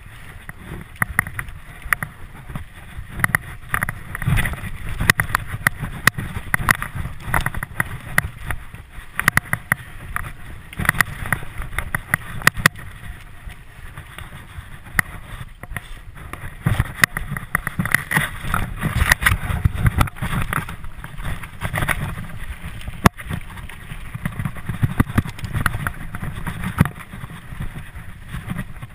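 Mountain bike rolling fast over a dirt forest trail: a constant low rumble from the tyres on the ground, with dense, irregular rattling and clicks as the bike jolts over bumps.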